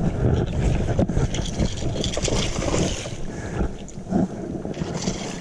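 Wind buffeting the microphone over water moving around a small fishing boat, an uneven rushing noise.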